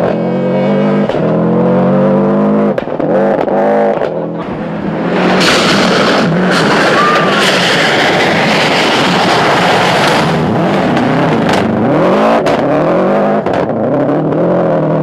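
Subaru Impreza rally car's turbocharged flat-four engine revving hard and changing gear, rising and falling in pitch. About five seconds in, a loud rushing noise takes over for about five seconds as the car slides past close on loose gravel, then the revving returns.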